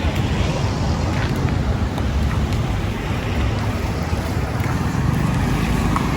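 Busy street traffic: cars and trucks running past with a steady low engine rumble.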